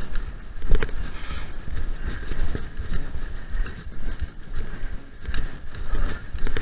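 Mountain bike rolling over a rough dirt forest track: a steady rumble of tyres and wind on the microphone, with a few sharp knocks and rattles from the bike over bumps.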